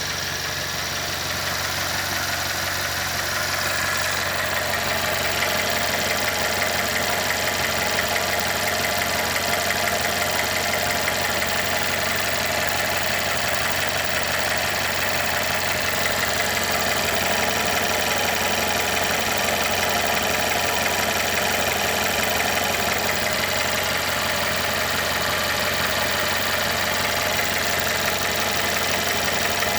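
Mercedes-Benz M274 turbocharged four-cylinder petrol engine idling steadily, with an extraneous knock in its running.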